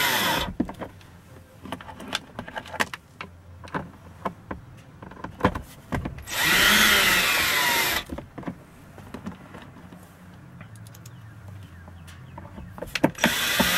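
Cordless drill driving self-tapping screws through a holster mount into a console lid: one run stops about half a second in, another lasts about two seconds in the middle, and a third starts near the end, the motor's whine rising and falling in pitch on each. Clicks and knocks of handling fall between the runs.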